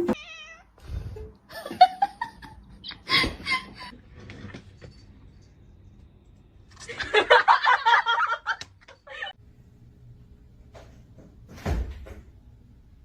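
A cat meowing in several separate pitched calls, the longest and busiest lasting about two seconds from around seven seconds in. A short knock near the end.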